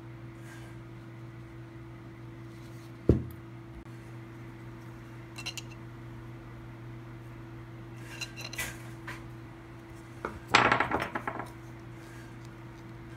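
Hard objects knocking and clattering over a steady hum: one sharp knock about three seconds in, a few light clicks, then a burst of rattling clatter near the end.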